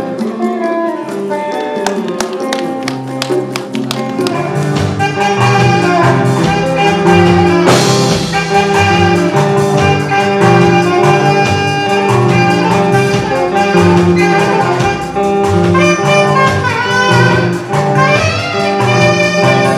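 Live band playing African-style music with a saxophone lead over congas, drum kit and electric guitar and bass. The bass and drums fill in about four to five seconds in, with a cymbal crash near the middle.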